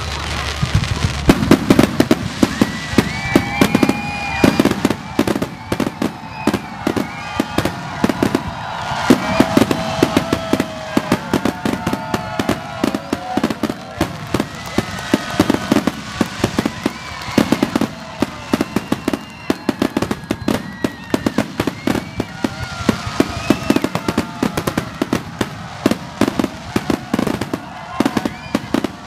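Fireworks and firecrackers going off in quick succession: a dense run of sharp bangs and crackles, several a second, with wavering higher tones underneath.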